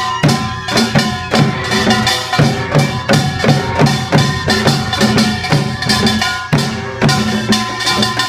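Samulnori percussion ensemble playing a steady driving rhythm: a kkwaenggwari small brass gong clanging over the strokes of Korean barrel and hourglass drums.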